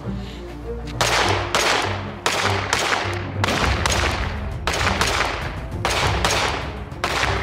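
Pistol shots from a Glock-pattern pistol built on an Aeonic Arms Alpha Comp stainless steel frame, fired in a steady string of about ten shots roughly every half to two-thirds of a second, starting about a second in. Background music plays under the shots.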